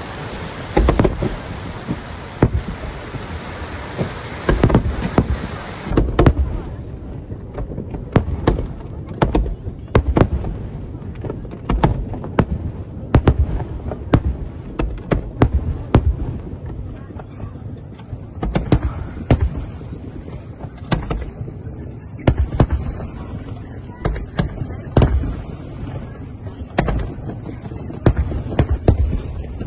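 A fireworks display: a long run of firework shell bursts, dozens of sharp bangs at an uneven pace, several a second at times. A steady hiss lies under the bangs for the first six seconds.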